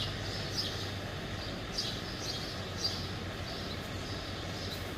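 Small birds chirping, short high calls every half second to a second, over a steady low hum.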